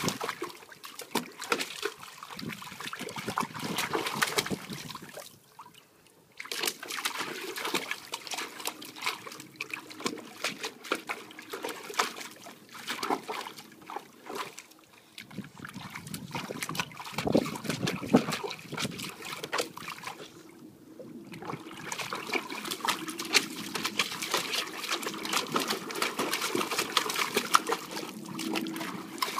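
Water splashing and sloshing in a plastic kiddie pool as an Old English Bulldogge paws at it with her front legs, in irregular bursts of splashes. The splashing pauses briefly twice, about six seconds in and about twenty-one seconds in.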